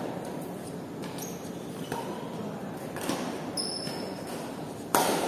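Badminton rally: shuttlecock struck by rackets in three sharp cracks about a second or two apart, the last and loudest near the end, with short high squeaks of sports shoes on the court floor in between.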